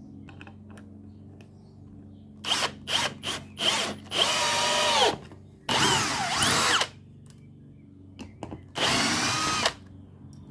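Bosch UniversalImpact 18V cordless drill with a brushless motor driving wood screws into a pine board. It starts with a few short trigger blips, then runs three times for about a second each, its whine falling in pitch toward the end of the longer runs.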